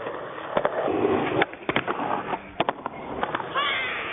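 Skateboard rolling on concrete, with several sharp clacks of the board and wheels hitting the ground. A brief high rising sound comes near the end.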